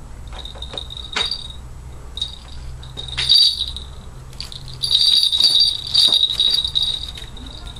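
Falconry bells worn by a Harris hawk jingling in several bursts as the bird moves, the longest and loudest burst in the second half.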